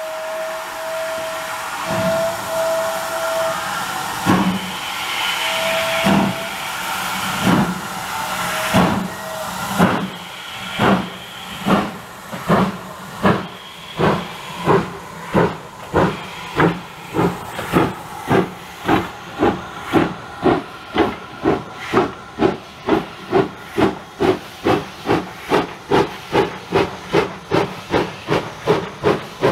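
Steam locomotive pulling away: its whistle sounds in several short blasts, then its exhaust chuffs begin slowly, about one every second and a half, and quicken steadily to about three a second as it gathers speed.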